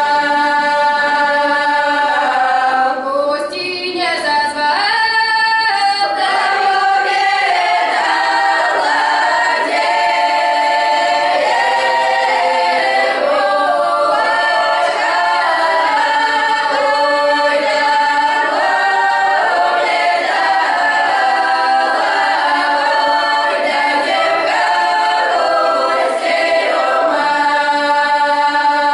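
Children's folk ensemble singing a traditional Russian folk song a cappella as a group, on long held notes with slides in pitch between some of them.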